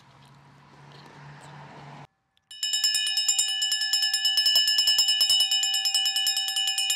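A metal bell ringing rapidly and continuously, struck about ten times a second over steady ringing tones. It starts abruptly about two and a half seconds in, after a brief silence that follows faint background noise.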